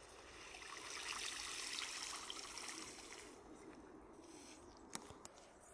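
Water trickling and splashing off a clump of waterweed lifted out of an irrigation canal on a pitchfork, swelling about a second in and fading by three seconds. A single short knock near the end.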